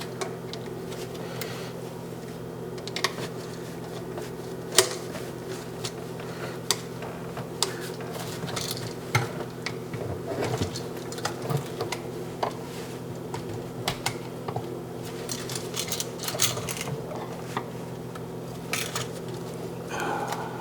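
Scattered small clicks and metallic taps of hands and a screwdriver working the wires and terminal screws of a GFCI receptacle, over a steady low hum.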